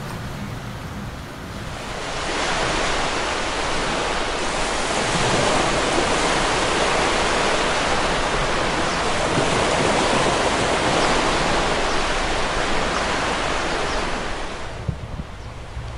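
Steady, even rushing noise that swells in about two seconds in and fades out near the end.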